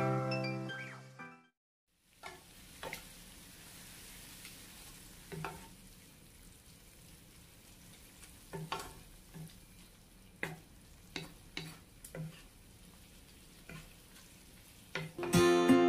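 Ground meat and vegetables sizzling faintly in a pan as a wooden spatula stirs them, with scattered light knocks and scrapes of the spatula against the pan. Music fades out at the start and music comes back in near the end.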